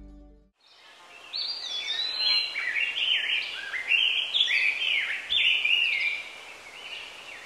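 Several birds singing, their phrases of quick rising and falling notes overlapping, over a faint outdoor hiss. The song begins about a second in and thins out near the end. A plucked-string music track fades out at the very start.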